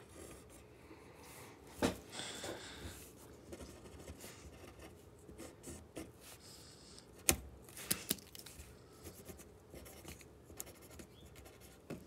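Pen scratching on paper as lines and lettering are drawn, with a few sharp clicks, the loudest about seven seconds in.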